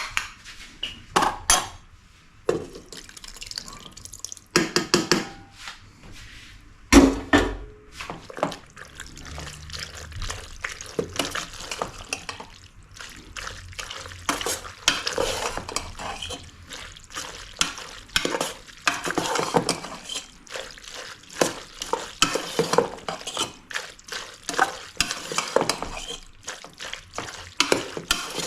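A cooking utensil stirring and scraping in a pan, with quick clinks and knocks against the metal and one loud knock about seven seconds in.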